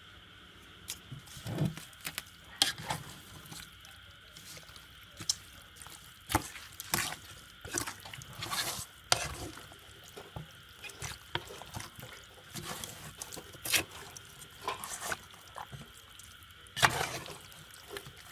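Wooden chopsticks mixing raw frog pieces in a wet chili, garlic and sauce marinade in a metal pot: irregular wet squelches with sharp clicks of the chopsticks against the pot.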